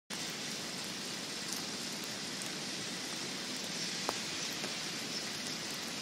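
Steady hiss of heavy wet snow falling through conifer branches, like light rain, with one sharp tick about four seconds in.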